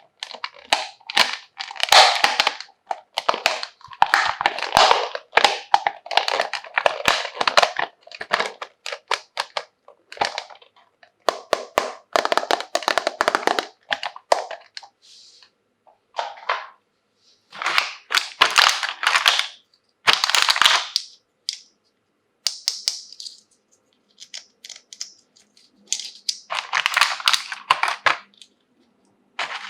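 Plastic packaging being handled and crinkled, in bursts of a second or two with short pauses between.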